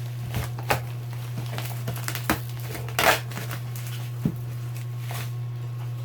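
Packaging being handled and crinkled during an unboxing, with scattered rustles and light knocks, the loudest rustle about three seconds in, over a steady low hum.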